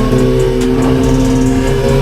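Background music with a steady beat, mixed with a motorcycle engine running steadily.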